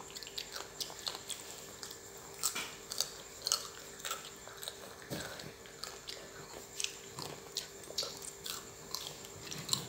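Someone chewing a mouthful of raw fruit, with irregular crisp crunches a few times a second.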